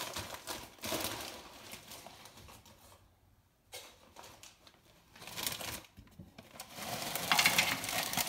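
Foil Doritos crisp packet crinkling and rustling as it is opened and handled, in bursts with a short pause about three seconds in and the loudest crinkling near the end.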